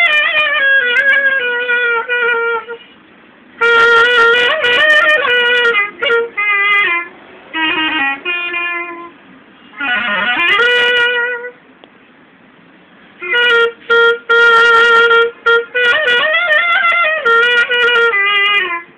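Solo clarinet playing a slow, unmetered alap: phrases of long held notes with ornamented slides and bends in pitch, broken by short pauses about three seconds in and again around twelve seconds.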